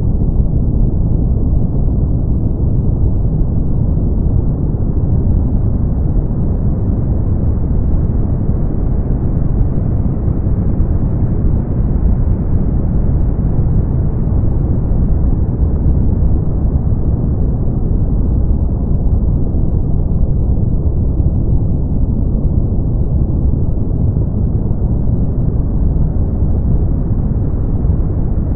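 Brown noise: a steady, deep rushing hiss weighted heavily toward the low end, with no tones or separate events.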